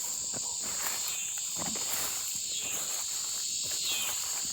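Steady high-pitched drone of evening insects singing, with faint rustling steps through the garden vines.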